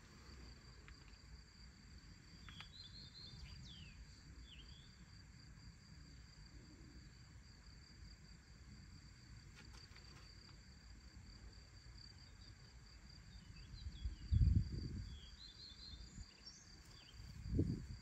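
Steady, high-pitched pulsing chirr of field insects, with a few short bird chirps. Under it runs a low rumble, with two brief louder low bumps near the end.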